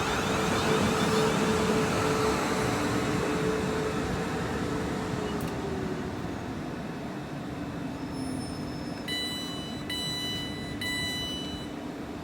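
Class 450 Desiro electric multiple unit running at the platform, its traction motor whine dropping in pitch as it slows. Near the end come three short electronic door warning beeps.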